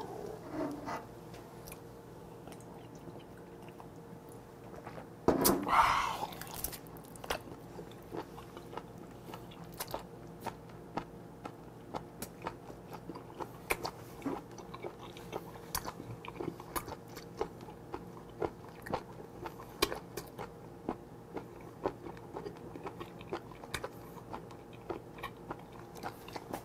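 Close-up chewing of a whole live octopus: a run of wet clicks and smacks from the mouth, with one louder, longer burst about five seconds in. A faint steady hum sits underneath.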